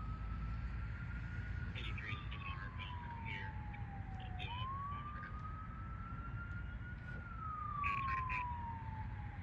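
Emergency vehicle siren in wail mode: one tone rises over about a second and a half and then falls slowly over about three seconds, going round this cycle twice, over a steady low rumble.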